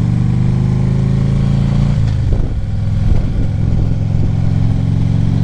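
Harley-Davidson Ultra Classic Limited V-twin running steadily at cruising speed. About two seconds in, the engine note dips and breaks up briefly, then steadies again.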